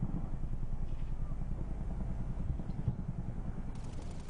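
Low engine rumble with an even pulse of about five beats a second, running steadily.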